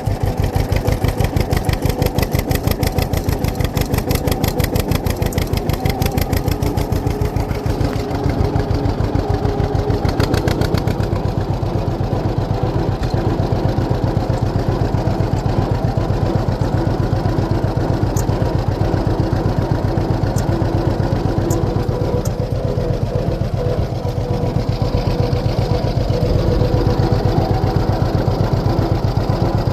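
John Deere 6300 tractor's diesel engine running steadily with an even, fast pulse, working under load while pulling a John Deere 328 small square baler through the hay.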